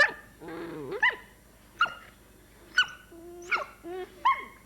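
Puppy yipping and whining: about six short, high-pitched yelps, each dropping in pitch, with lower whines between some of them.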